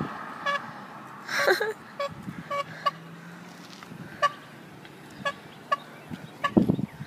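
A small horn giving a string of short, high toots at irregular intervals, one louder and longer about a second and a half in.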